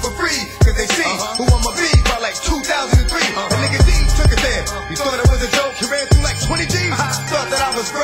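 Hip hop track with rapping over a beat of deep, booming kick drums and bass.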